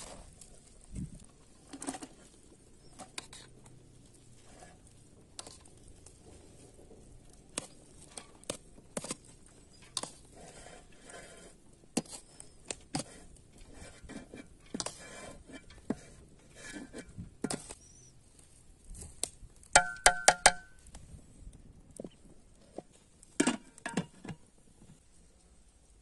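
Cooked carrot-and-rice pilaf rustling as it is mixed by hand and scooped from a stainless steel bowl into a metal pot, with scattered clicks and knocks of the metal vessels. About 20 seconds in comes a quick run of ringing metal clanks, the loudest sounds, and a louder knock follows a few seconds later.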